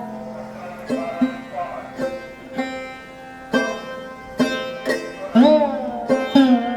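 Background Indian classical music on a plucked string instrument: single notes plucked about once a second over a steady drone, with a few notes bent in pitch.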